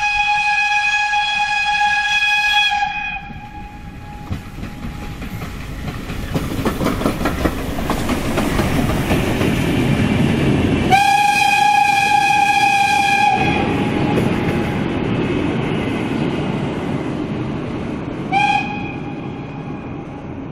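Ty42 steam locomotive whistling and crossing a steel truss railway bridge. A long whistle blast opens, then wheel rumble and clatter build as the engine comes onto the bridge, with a second long blast midway and a short toot near the end. The clatter fades as it moves away.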